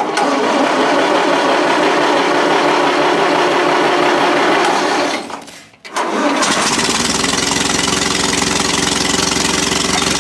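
International 414 tractor engine turning over and running on a jump-start from a completely dead battery. The sound drops away a little after five seconds in, comes back within a second, and then runs steadily with a deeper note.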